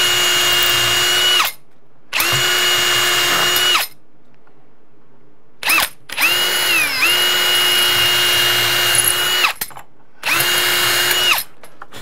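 Ryobi PBLHM101 cordless drill pre-drilling pilot holes through a strike plate's screw holes into the wooden door jamb and framing behind it. The motor runs in four bursts of steady whine with short stops between, and the pitch dips briefly as the bit loads up about seven seconds in.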